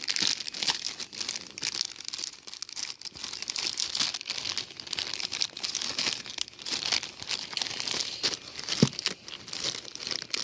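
Toy packaging being crinkled and torn open by hand: a continuous crackling rustle of wrapping, with one brief sharper sound about nine seconds in.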